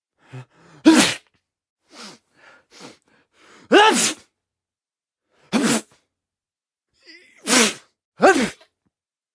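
A person coughing and sneezing: five loud, short voiced bursts, each falling in pitch, about a second in, around four seconds in, and three more in the second half, with fainter short breathy sounds between the first two loud ones.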